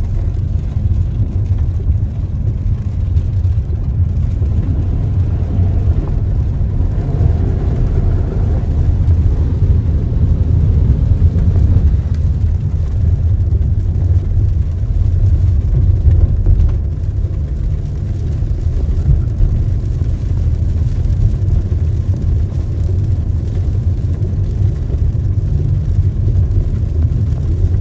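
Car driving on wet streets, heard from inside the cabin: a steady low rumble of the engine and tyres.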